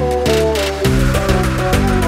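Background music: an upbeat electronic track with a steady beat and a moving bass line.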